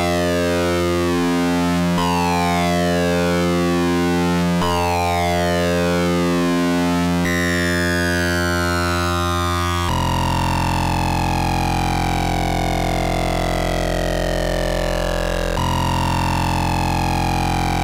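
Eurorack modular synthesizer: Rossum Trident oscillators wave-spliced through a Future Sound Systems Recombination Engine, holding a steady low pitch while the high overtones glide downward over and over. The tone shifts abruptly about seven seconds in, again near ten seconds, and the glide starts again near the end.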